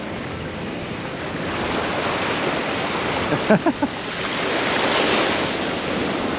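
Small waves breaking and washing up on a sandy shore, swelling to a peak about five seconds in, with wind on the microphone. A brief voice-like sound comes about three and a half seconds in.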